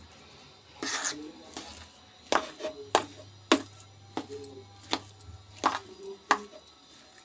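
Mashed potato stuffing being mixed by hand in a steel plate, with irregular sharp knocks against the plate about once or twice a second.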